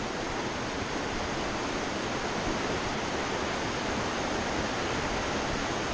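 Mountain river rushing over rapids in a rocky gorge: a steady, even sound of running white water.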